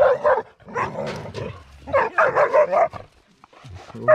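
Several dogs barking at one another across a fence in a squabble, in a few sharp bursts with a longer run of barks about halfway through.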